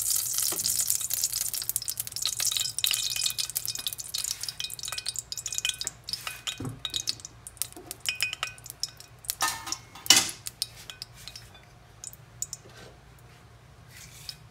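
Cooking oil crackling and spitting as it heats in a stainless steel pot: dense just after it is poured in, then thinning to scattered pops, with a few louder cracks around nine to ten seconds in.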